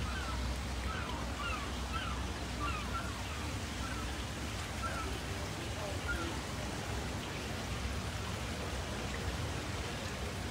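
Steady outdoor rushing noise with a low hum under it. A run of short, high chirps repeats through the first half and stops about six seconds in.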